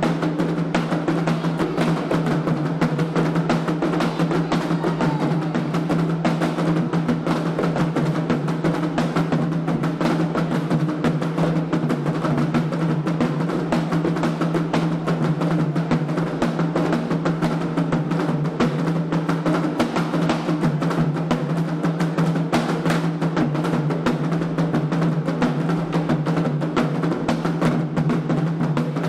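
Candomblé atabaque drumming: a dense, steady rhythm of many strokes that runs without a break.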